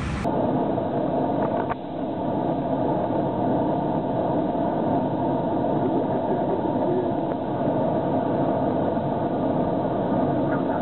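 Steady rushing noise of airflow and engines inside an aircraft cockpit in cruise flight, dull and low. It switches abruptly to this noise just after the start.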